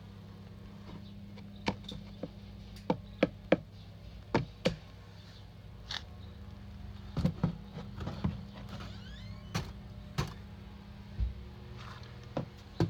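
A string of separate sharp knocks and clicks, like things being handled and set down, over a steady low hum.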